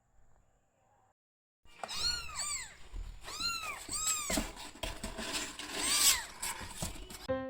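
An animal's repeated short, high calls, each rising and then falling in pitch, starting a couple of seconds in, with clatter underneath. Piano music comes in at the very end.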